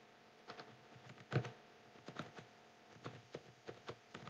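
Typing on a computer keyboard: faint, irregular key clicks, with one louder stroke about a second and a half in.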